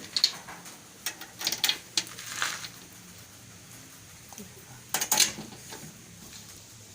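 Dry, brittle raw krupuk crackers clattering and knocking against each other in short rattling bursts, twice, over a faint low steady hum.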